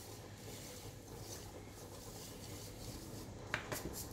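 Faint scratchy rustling of ground garam masala being rubbed by hand through a fine metal mesh sieve, with a couple of light clicks near the end.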